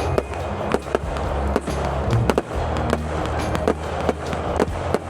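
Fireworks going off, a quick irregular run of sharp cracks and bangs, over music with a steady bass line.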